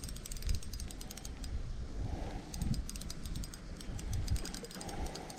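Fishing reel being cranked to bring in a hooked crappie: a fast, irregular run of light clicks, over wind buffeting the microphone.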